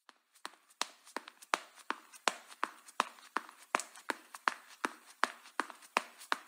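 Quick footsteps on a hard surface, nearly three steps a second with alternating strong and light steps, starting suddenly.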